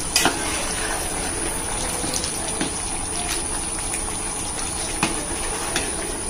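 Water swishing and splashing steadily as rice is stirred and washed by hand in a large aluminium pot, with a few light clicks of the ladle against the metal.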